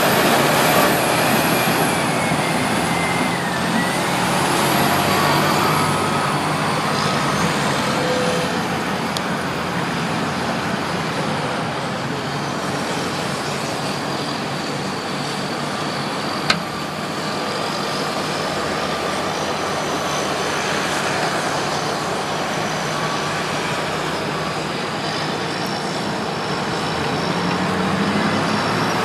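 Heavy diesel machinery, chiefly a Caterpillar D8T bulldozer, running steadily with high whines that rise and fall. There is a single sharp knock about halfway through.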